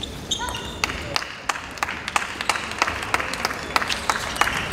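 Scattered, irregular sharp taps and clicks echoing in a large hall, with a few short squeaks near the start.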